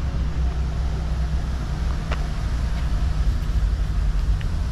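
Steady low rumble of a running vehicle engine, with a single sharp click about two seconds in.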